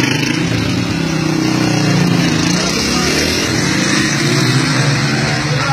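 Motorcycle engine running close by, its pitch rising and falling as the throttle changes.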